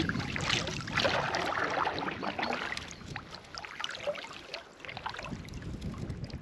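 Kayak paddle strokes in loch water: splashing and dripping swells about a second apart, easing off in the second half.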